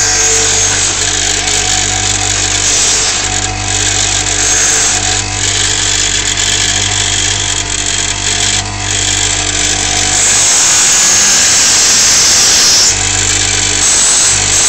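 Power tool running and grinding down a steel hacksaw-blade lock pick to strip its paint and thin it: a steady motor hum with a gritty hiss. After about ten seconds the hum drops out for a few seconds while the hiss gets brighter, then the hum returns.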